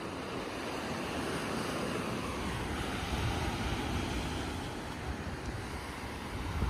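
Ocean surf washing on a sandy beach, with gusting wind rumbling on the microphone.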